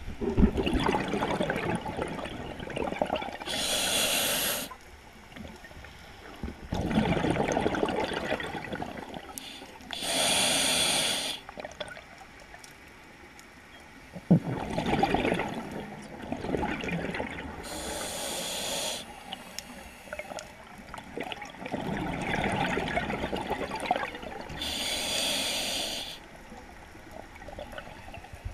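Scuba diver breathing through a regulator underwater: four slow breaths, each a burst of gurgling exhaust bubbles followed by the hiss of the regulator on the in-breath.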